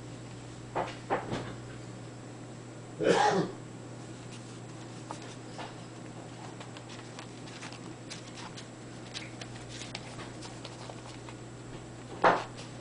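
Four-week-old Irish Terrier puppies scuffling about on paper bedding: faint scattered ticks and rustles, with a few short, sharp noises about a second in, around three seconds in and near the end.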